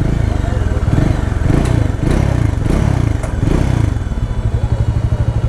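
Bajaj Dominar 400 single-cylinder engine blipped several times over the first four seconds, then idling steadily, while a noise from one side of the engine is listened for: valve shim noise, which the mechanic judges normal for a shim-adjusted valvetrain.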